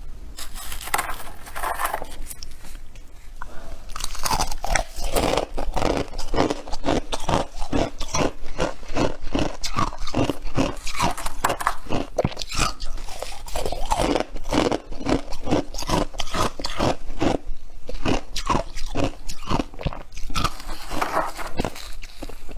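Close-up chewing of freezer frost: rapid, repeated squeaky crunches as mouthfuls of powdery frost are bitten and chewed, several crunches a second.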